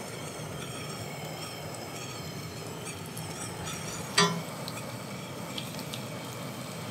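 Crayfish meat frying in butter in a pan on a portable gas camp stove: a steady low sizzle as the pieces are laid in with tongs, with one short sharp sound about four seconds in.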